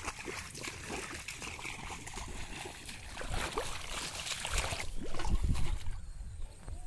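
Muddy water sloshing and splashing as people wade through a shallow flooded rice paddy, with a louder low rumble about five seconds in.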